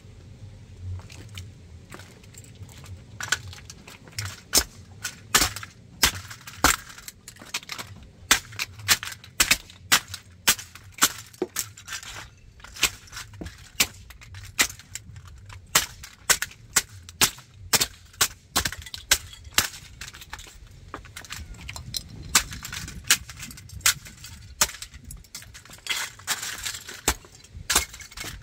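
Shoe soles and heels stamping on the pieces of a toy tanker truck on concrete: repeated sharp cracks and clattering snaps of the breaking parts, about one or two a second, starting a few seconds in.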